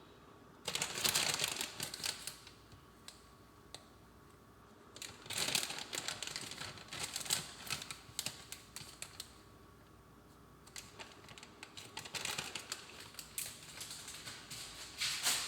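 Crinkly rustling and quick light clicks from handling taco ingredients and their packaging. The sound comes in three bursts, with quiet gaps between them.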